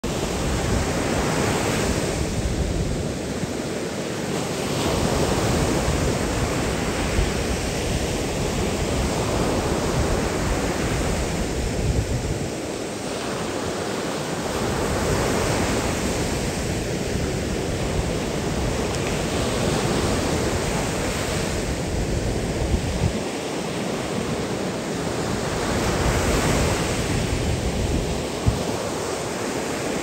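Small surf waves breaking and washing up a sandy beach: a steady rush of foaming water that swells with each wave every few seconds.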